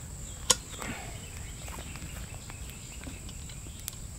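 Steady high-pitched insect drone, with one sharp knock about half a second in and a fainter click near the end.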